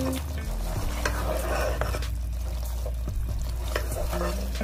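Beef pieces in oil and masala sizzling in a non-stick pan while a spatula stirs and scrapes them: the bhunai stage, frying the cooked meat down after its water has cooked off.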